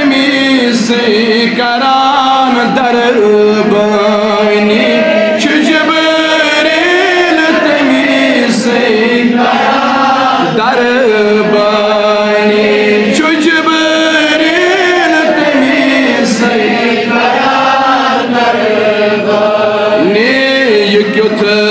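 Man singing a Kashmiri naat, a devotional song in praise of the Prophet Muhammad, in long held notes that waver and glide in pitch.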